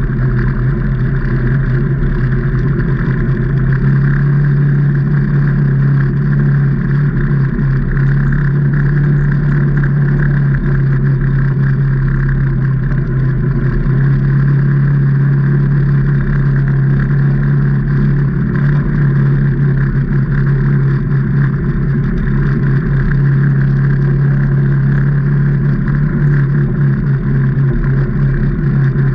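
Can-Am Maverick Trail 800 side-by-side's Rotax V-twin engine running at a steady pitch as it drives along at an even speed.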